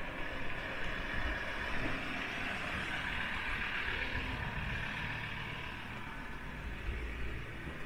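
Street traffic: a road vehicle passing, its engine and tyre noise swelling about halfway through and then easing off over a steady low rumble.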